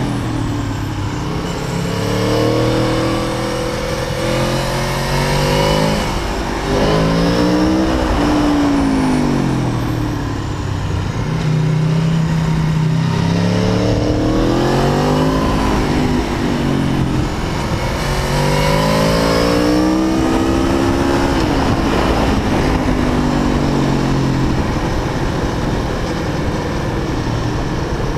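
Aprilia Tuono APRC Factory's V4 engine running on the road, its revs climbing and dropping several times as it accelerates and slows.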